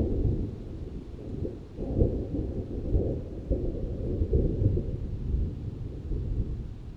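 Rolling thunder rumbling, with several crackling swells, dying away near the end.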